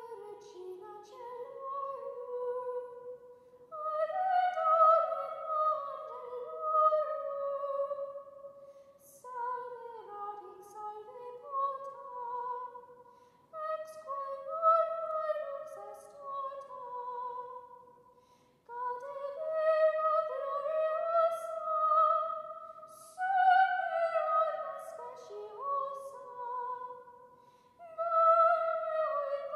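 Solo soprano singing Latin Gregorian chant unaccompanied, in a church, in phrases of several seconds each broken by short pauses for breath.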